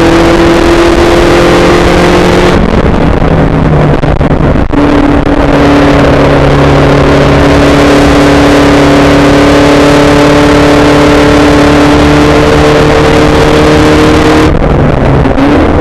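Spec Racer Ford's four-cylinder engine running hard, heard from the open cockpit with a steady rush of wind and road noise. It eases off about two and a half seconds in, a brief click follows near five seconds, then it pulls for about ten seconds with its pitch slowly rising before backing off again near the end.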